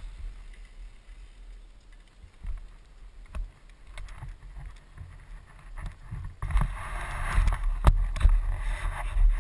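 Wind rushing over a helmet-mounted camera's microphone with low rumble and a few sharp knocks from a mountain bike riding on gravel, growing much louder about six seconds in.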